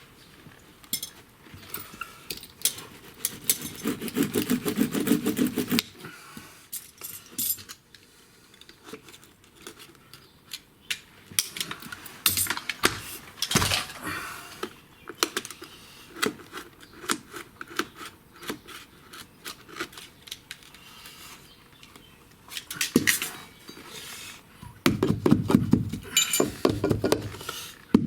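Metal tools clinking and tapping during carpet repair work, with two bursts of rapid rasping strokes, about four seconds in and again near the end.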